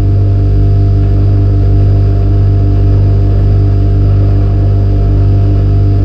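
Refrigerator hum from a processed field recording: a loud, steady low drone made of several held tones, strongest at the bottom, with one mid tone pulsing on and off rapidly.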